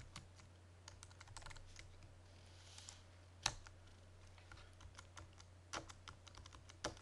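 Computer keyboard typing: faint, scattered key clicks at an irregular pace, with one sharper keystroke about halfway through, over a steady low hum.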